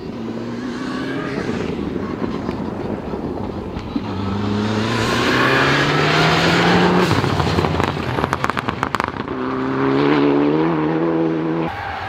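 Mitsubishi Lancer Evolution rally car's turbocharged four-cylinder engine driven hard on a gravel stage, its pitch rising as it accelerates, with a rapid run of sharp crackles about eight seconds in. A second burst of throttle follows and cuts off abruptly near the end.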